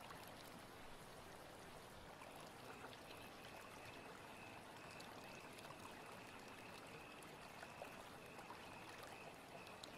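Faint running water, like a gently trickling stream, with a faint, high, broken note from about two seconds in.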